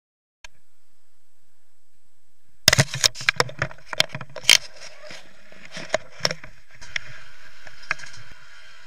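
Helmet-camera sound of a 2014 Yamaha YZ125 two-stroke motocross bike riding off, its engine muffled under wind buffeting and repeated knocks on the microphone. These start about two and a half seconds in, and a steadier rush of wind takes over from about seven seconds.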